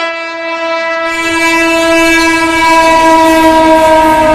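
An Indian Railways electric locomotive's horn sounds one long, steady note over the rumble of the passing train. It grows louder and dips slightly in pitch near the end.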